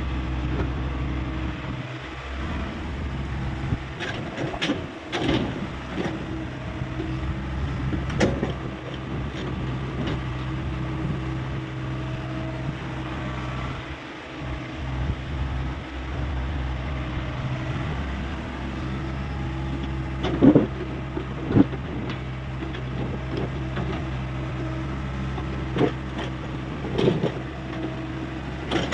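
Hyundai 85A excavator's diesel engine running steadily, with several sharp clanks and knocks from the bucket and arm as it works. The loudest two knocks come a little past twenty seconds in.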